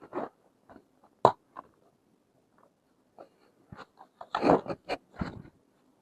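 Plastic pieces of a toy medical play set being handled: scattered sharp clicks and taps, then a busier stretch of clattering and rustling about four seconds in.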